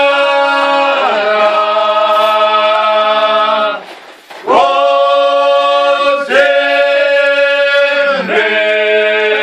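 A group of men singing a traditional Croatian folk song a cappella, several voices holding long, close chords. The singing breaks off for a breath about four seconds in, then starts again and moves to new chords twice.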